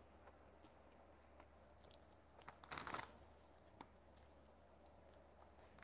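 Near silence, broken about three seconds in by a brief crinkling crunch of a plastic snack packet being handled.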